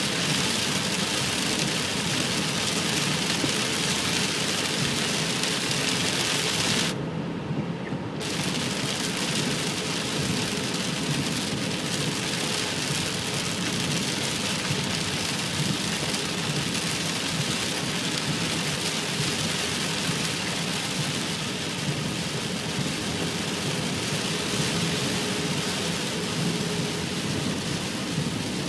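Heavy rain on a moving car together with the hiss of tyres on a wet freeway, heard from inside the cabin. It is a steady noise, with the high hiss dropping out for about a second some seven seconds in.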